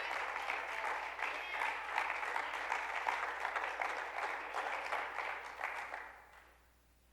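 Congregation applauding, the clapping tapering off and dying away about six seconds in.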